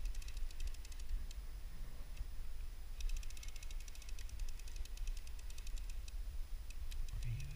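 Fishing reel clicking in a fast, even run of ticks, which stops about a second in and starts again about three seconds in.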